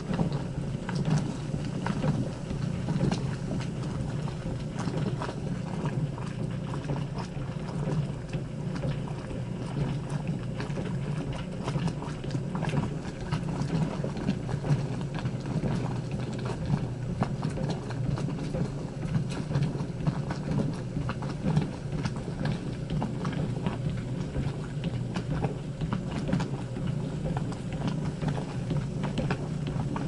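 Old washing machine running: a steady low rumble with irregular clicks and knocks over it.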